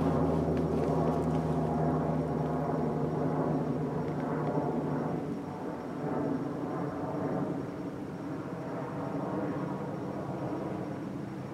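Electric train running along the line: a dense rumble with a steady low hum, loudest at first and then slowly fading.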